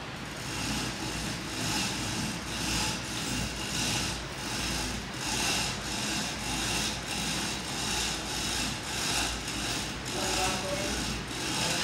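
Rhythmic scraping or rasping strokes, about two a second, kept up evenly, over a low steady hum.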